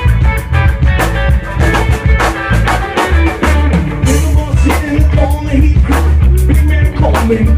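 Rock music with a busy drum kit beat, bass and guitar.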